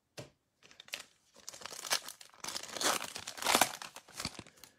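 Foil wrapper of a Donruss Optic trading-card pack being torn open, an irregular crinkling and tearing that is loudest around the middle and stops near the end.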